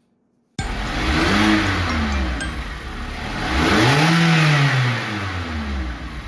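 1:16-scale electric RC car (Blackzon Slyder) driving, its motor whine rising and falling twice with the throttle over steady tyre and drivetrain noise. The sound starts suddenly about half a second in.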